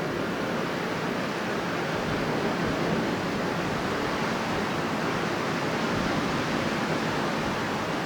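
Strong wind blowing steadily, a dense rushing noise that swells a little in the middle.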